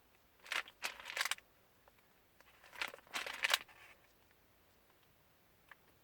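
Two short bursts of rustling and scraping handling noise, the second about two seconds after the first.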